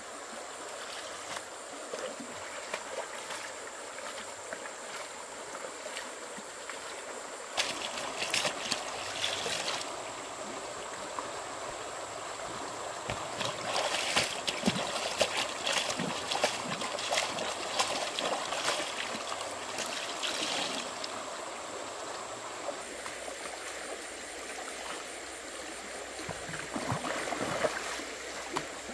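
Water running and trickling steadily, with louder bouts of splashing and sloshing as clothes are washed by hand: about eight seconds in, again from about 13 to 21 seconds, and briefly near the end.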